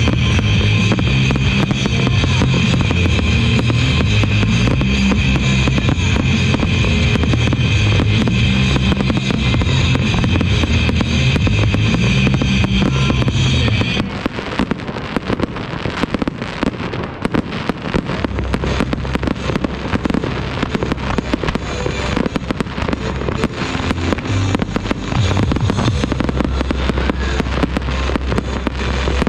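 Aerial fireworks going off in rapid, crackling bursts under loud music with a heavy bass. About halfway through, the music cuts off abruptly, leaving the dense popping and crackling of the fireworks.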